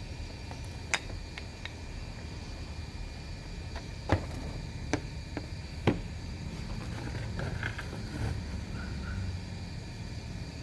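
A few sharp clicks or knocks, about four of them at irregular intervals over a few seconds, over a steady low hum.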